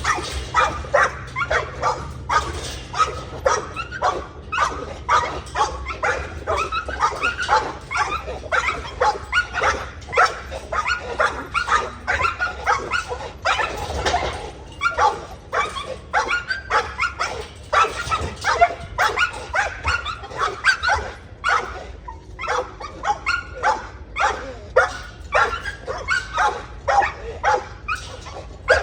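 Dog barking over and over, about two to three barks a second, with only brief pauses, over a steady low hum.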